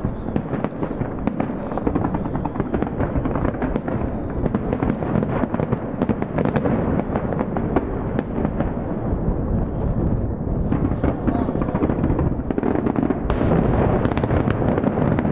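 Aerial fireworks bursting in a dense, continuous barrage of bangs and crackles, with a couple of sharper cracks standing out, one in the middle and one near the end.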